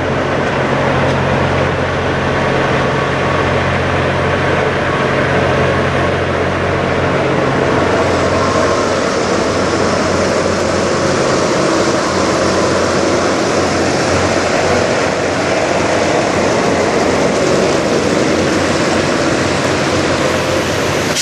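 Idling diesel semi-truck engines: a steady low engine hum under a loud, even noise, with the hum fading somewhat about eight seconds in.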